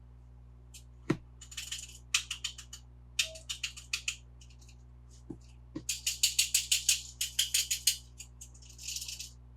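Toy cars and their plastic packaging being handled during unboxing: quick runs of light, sharp clicks and rattles, busiest about six to eight seconds in.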